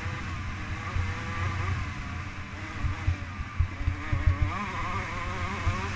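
Dirt bike engine running hard at speed, heard from the onboard camera, its pitch wavering up and down with the throttle over a heavy rumble. A run of knocks from the bike hitting bumps comes about two thirds of the way through.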